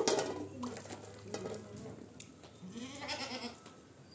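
Goats bleating, with one longer wavering bleat about three seconds in and a sharp knock at the very start.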